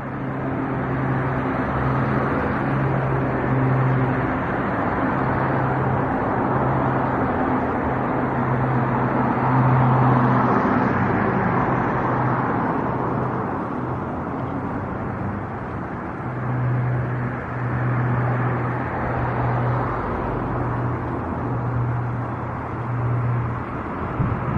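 Jet airliner engine roar, a broad rushing noise that swells to its loudest about ten seconds in and then eases off. A low steady hum keeps cutting in and out underneath.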